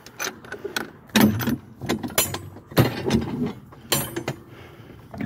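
A series of knocks and rattles, about four loud ones spread out with lighter ones between, as of metal gear being handled or moved about.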